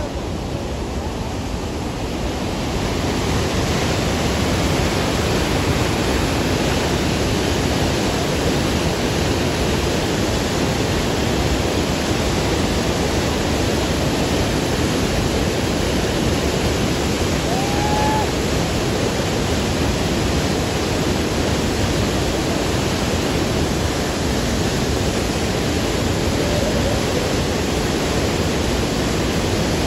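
Niagara Falls and the rushing river in front of it: a steady, dense rush of water that gets louder about two seconds in.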